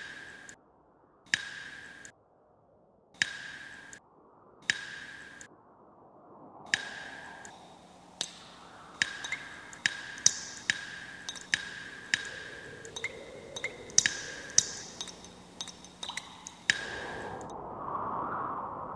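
Water dripping drop by drop from a leaking tap, each drop a sharp plink with a short ringing tone. The drops fall slowly at first, about one every second and a half, then quicken to several a second. Near the end they stop and a soft whooshing swell takes over.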